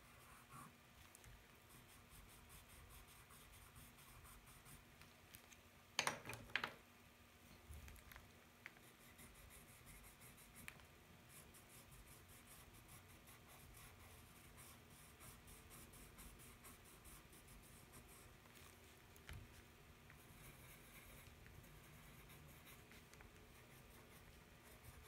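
Faint scratching of a pencil drawing on paper, with a short louder noise about six seconds in.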